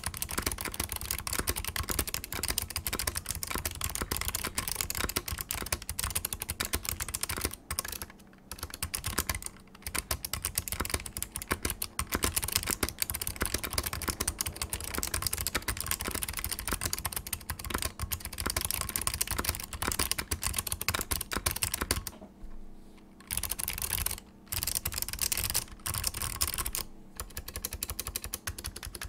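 Steady, rapid typing on a Smith + Rune Iron180 mechanical keyboard with click-modded, dampened cream Alps switches in a stainless steel plate, a dense stream of key clicks broken by a few short pauses, the longest about two-thirds of the way in.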